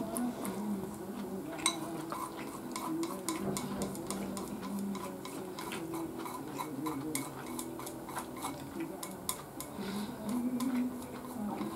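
Eating sounds: chewing with many small, sharp mouth clicks, mixed with chopsticks and tableware clicking against dishes, over a faint low steady hum.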